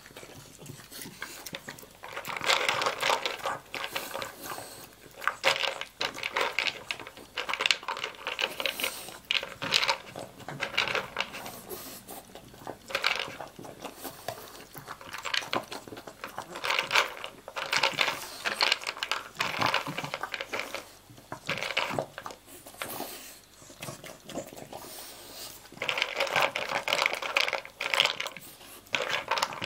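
Dry kibble rattling and clicking against a plastic slow-feeder bowl as a dog noses and eats its way around the bowl's knobs, in irregular bursts with short pauses between.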